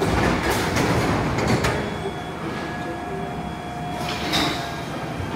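London Underground tube train, with a few sharp clicks and knocks in the first two seconds, then a steady rumble under a faint continuous whine.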